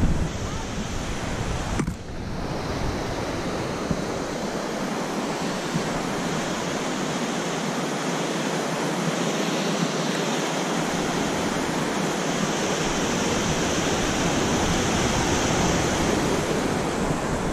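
Steady rush of wind noise on the microphone of a mountain bike's action camera while riding down a trail. The noise drops briefly about two seconds in.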